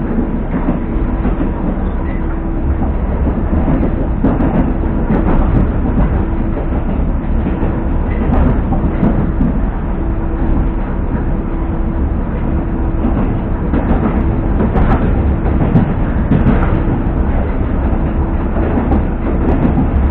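Moscow metro train running at speed, heard from inside the carriage: a steady rumble of wheels and running gear with a constant low hum. Wheels click over rail joints here and there, more often in the second half.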